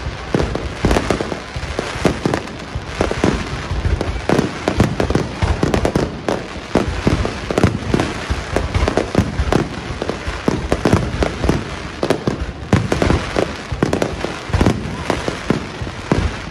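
Aerial fireworks going off in a rapid, unbroken barrage, many sharp bangs overlapping with one another and with crackling from glittering gold bursts.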